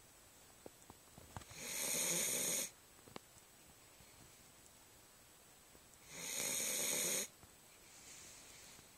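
A sleeping pet snoring, as loud as a person: two loud snores about four and a half seconds apart, each lasting about a second, with a fainter breath near the end.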